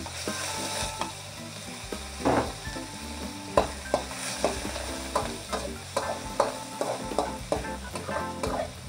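Food sizzling in a hot frying pan as it is stirred, with repeated knocks and scrapes of the utensil against the pan from about two seconds in.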